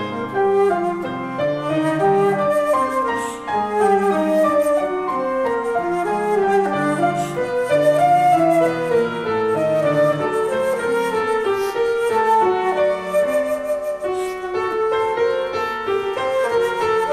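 Concert flute playing a melodic line over grand piano accompaniment, the two in contemporary classical style with notes changing continuously.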